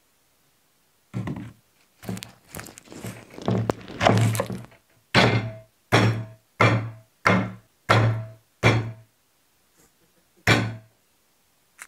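Heavy cleaver chopping garlic cloves on a thick wooden chopping board. A run of quick, uneven knocks is followed by six heavy chops about two-thirds of a second apart, each with a brief ringing note from the blade, and one last chop near the end.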